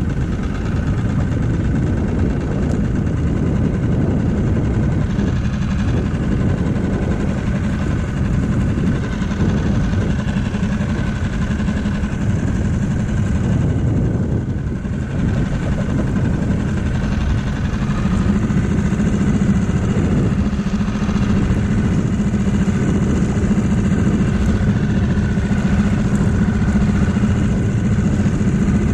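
Small outboard motor on an inflatable dinghy running steadily at low trolling speed, an even drone with a hum that does not change.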